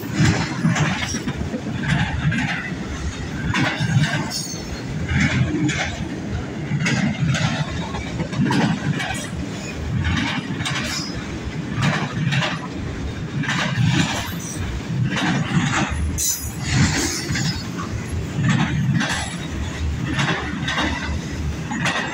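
CN freight train rolling past, its cars' wheels clacking over the rail joints in a steady run of knocks over a continuous low rumble.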